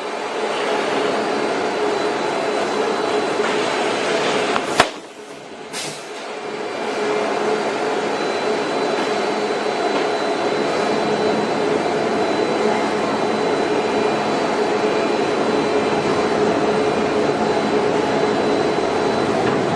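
CNC woodworking router running steadily, a continuous machine noise with a thin whine. About five seconds in there is a sharp click, the noise drops for a moment and then builds back up.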